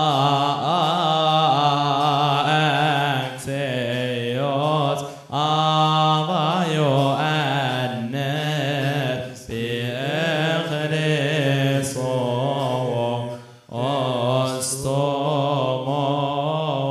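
Coptic Orthodox liturgical chant: voices sing a drawn-out, melismatic hymn in long phrases with brief pauses between them.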